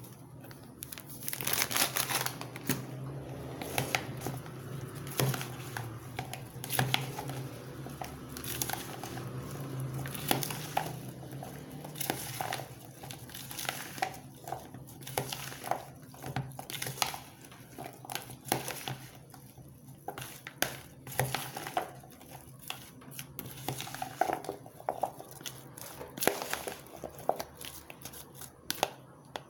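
A foil snack packet crinkling as it is shaken out over a bowl, followed by a metal spoon scraping and clicking against a plastic bowl as chopped fruit is stirred.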